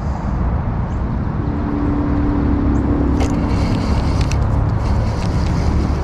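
Steady low rumble of road traffic, with one vehicle's engine hum held at a steady pitch for a couple of seconds in the middle, and a few faint clicks around the middle.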